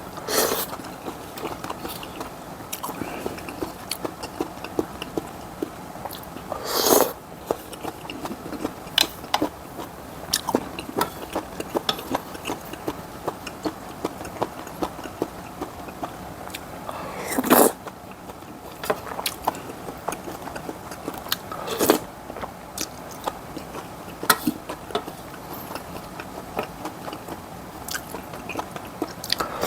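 Close-up eating sounds of a person working through Korean-Chinese jjamppong noodles and fried rice: steady small chewing clicks, with about five louder half-second eating sounds spread through the stretch.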